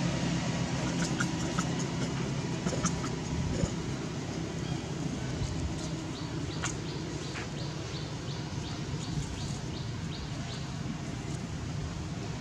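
Steady low background rumble with a run of short, high chirps repeating about two or three times a second for several seconds from around the middle. A few faint clicks come earlier.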